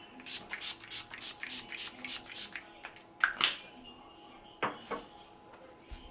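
Fine-mist spray bottle of facial toner pumped over and over: a quick run of about ten short spray hisses, then a few single sprays, one of them louder, about three seconds in.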